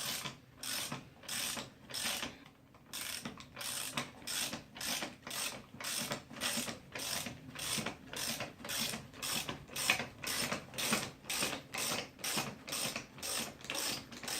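Ratchet clicking in steady, even strokes, about two to three a second, as a strut spring compressor clamp is backed off to release the coil spring on a newly assembled rear strut. There is a short pause about two to three seconds in.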